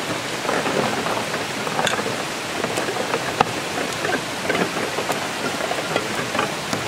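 A hand stirring through icy water in a cooler box: splashing and sloshing, with many sharp clinks and knocks as ice, drink cans and glass bottles bump together.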